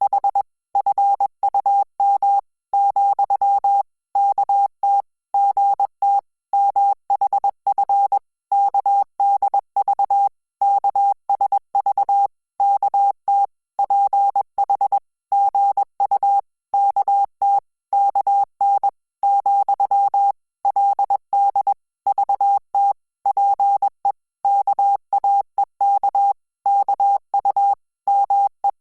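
Morse code: a single steady beep tone keyed on and off in short dots and longer dashes with gaps between letters and words, sending Korean Hangul text at about 20 words per minute.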